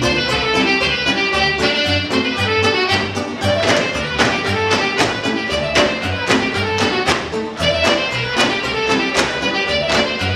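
Lively Romanian folk dance music with a melody over a steady, evenly spaced beat.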